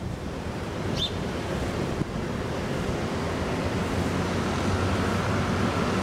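Steady rushing wind noise on the microphone, with a single short, high bird chirp about a second in.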